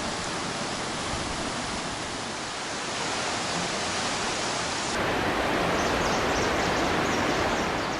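Powerful mountain river rushing: a steady, even hiss of fast water, which steps up louder about five seconds in.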